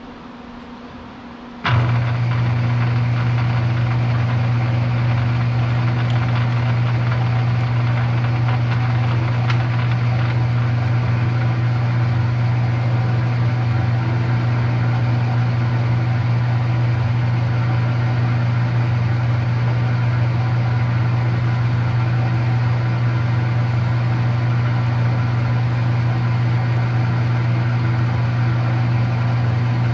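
Electric motor of a metalworking machine tool switching on about two seconds in and running at a steady speed with a strong low hum.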